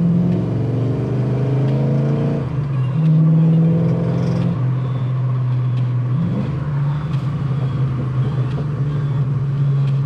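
1968 Dodge Charger's engine, heard from inside the cabin, pulling under acceleration through the manual gearbox: its pitch climbs, drops back at a gear change about two and a half seconds in, climbs again, and then settles into a steadier cruise.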